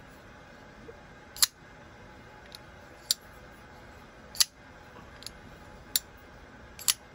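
Koenig Arius titanium flipper knife being flicked open and closed again and again: about five sharp metallic clicks roughly a second and a half apart, with a few fainter ticks between.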